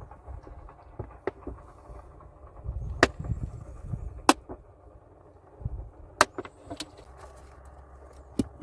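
Stones clacking against each other as they are handled and set in place: about seven sharp knocks at irregular intervals, with a low scraping rumble around the loudest ones in the first half.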